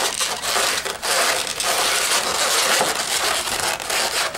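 Inflated latex modeling balloons rubbing and squeaking against each other as they are twisted and pressed into place: a continuous rubbing noise broken by many short, sharp creaks.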